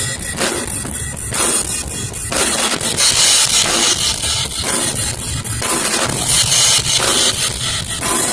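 Drum kit being played, with bass drum and cymbals; the cymbals ring out louder and brighter from about three seconds in.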